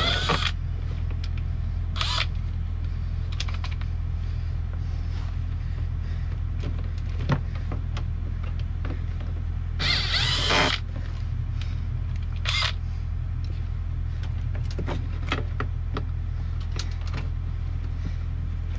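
Clicks, knocks and a brief scraping rattle about ten seconds in, from hands and a 3/8-inch socket working the connectors and bolts of an old blower-motor resistor under a truck dash. A steady low hum runs under it all.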